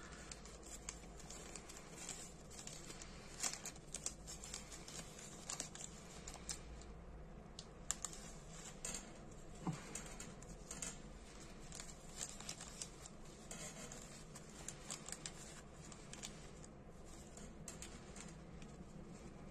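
Faint crinkling and small ticks of a thin clear plastic parts bag being handled, with metal tweezers picking at its contents.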